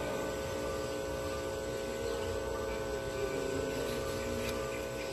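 Steady electrical hum with many overtones, unchanging throughout.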